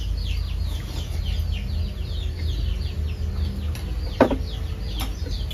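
Chicks peeping over and over in short falling chirps, several a second, with two sharp clinks of tableware near the end over a steady low hum.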